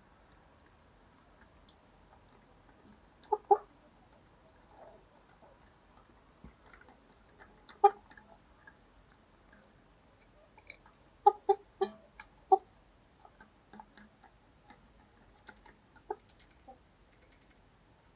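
Chickens clucking now and then: a pair of short clucks, a single one, then a quick run of four or five clucks, and a last few fainter ones.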